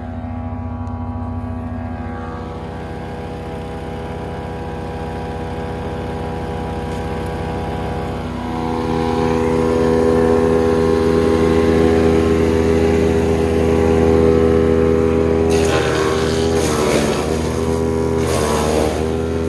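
Ravenger wood chipper's petrol engine running steadily, getting louder about eight seconds in. Late on, branches feed through with three or four rough crunching bursts as the blades chew the wood, and the engine pulls down under each load.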